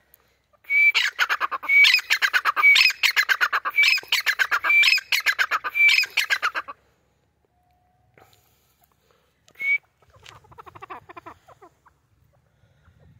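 Grey francolin calling: a fast rattling run of sharp notes, broken about once a second by a short rising whistled note, lasting some six seconds. After a pause comes one more whistled note and a fainter rattling run.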